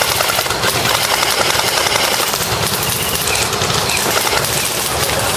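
Airsoft electric guns firing on full auto, a dense, continuous rattle of rapid shots.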